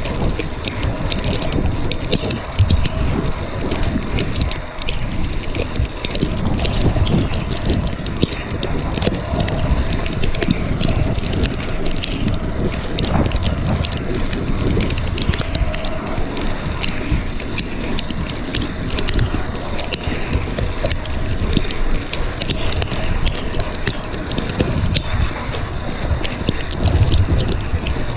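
Mountain bike being ridden along a trail, with wind buffeting the microphone. A low tyre rumble surges and eases again and again, with frequent sharp clicks and rattles from the bike over rough ground.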